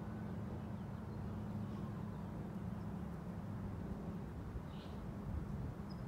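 Steady low rumble of a distant engine, with a brief faint bird chirp about five seconds in.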